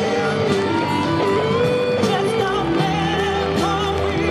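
Live rock band playing: singing over acoustic and electric guitars, bass and drums.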